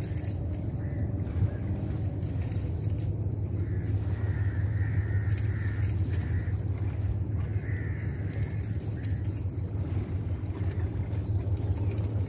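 High-pitched insect chirring that swells and fades in long stretches, over a steady low rumble.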